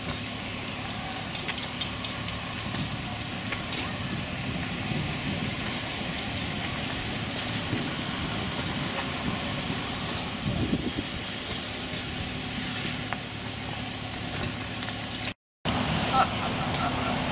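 An engine running steadily, a low even hum under outdoor background noise; the sound cuts out for a moment near the end.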